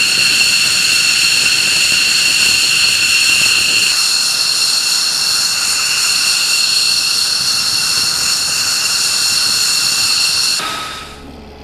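F-15 fighter's twin jet engines running on the ground: a steady, loud, high-pitched turbine whine over a rush of jet noise. The whine shifts in tone about four seconds in and cuts off suddenly near the end.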